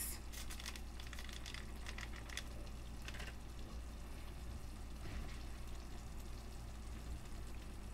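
Pan gravy simmering faintly in a skillet, a low steady bubbling and sizzle, with a few soft clicks of stirring in the first few seconds.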